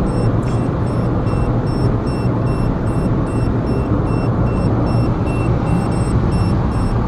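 Citroën C4's dashboard warning chime beeping steadily about twice a second over the steady drone of road and engine noise in the cabin at speed. The chime is the speed alert sounding because the car is being driven above the set speed, which the occupants find annoying over time.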